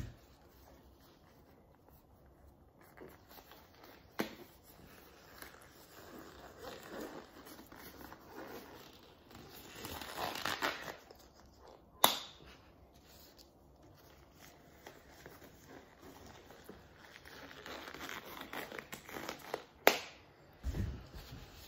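Blue disposable exam gloves being pulled on by hand: soft rubbery rustling and stretching, with three sharp snaps as the cuffs are released, about 4, 12 and 20 seconds in.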